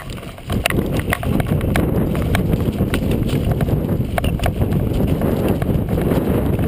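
Wind buffeting the microphone with a heavy low rumble, over a run of irregular sharp clicks and knocks about two or three a second.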